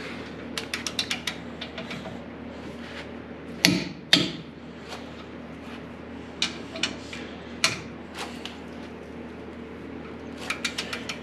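A socket ratchet clicks in quick runs as the steering box mounting bolts are wound in through the frame. Single clicks are scattered between, and two loud, sharp metal clacks come about three and a half and four seconds in as the long wrench is pulled to tighten them.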